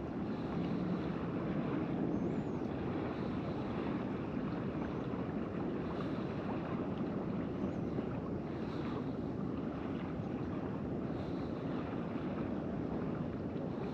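Steady wind noise on the microphone over a low, even wash of water.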